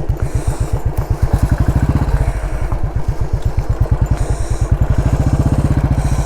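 Motorcycle engine running while being ridden, its exhaust giving a fast, even beat throughout.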